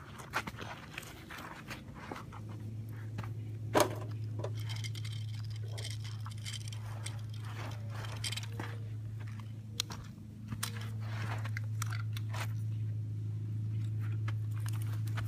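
Small plastic toy tractors pushed through loose, gritty dirt: scattered crunching and scraping of wheels and grit, with a sharper knock about four seconds in. Under it runs a steady low hum that drops out for the first couple of seconds and briefly just after the middle.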